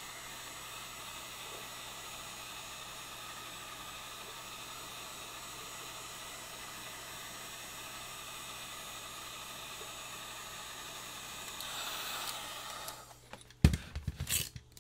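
Heat gun blowing a steady hiss of hot air to soften 3D-printed tree supports. It shuts off about thirteen seconds in, followed by a few sharp clicks and knocks.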